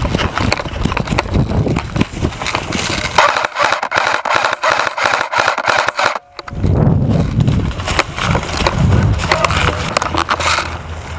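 Loud scraping, rubbing and knocking handling noise from a camera taped to an airsoft gun as the gun is carried on the move. The noise drops out briefly about six seconds in.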